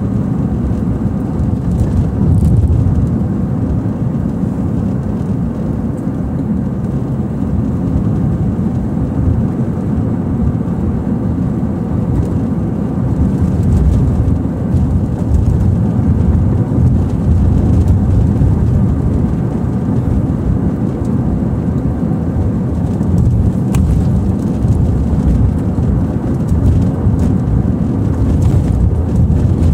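Steady low rumble of a car travelling at road speed, heard from inside the cabin.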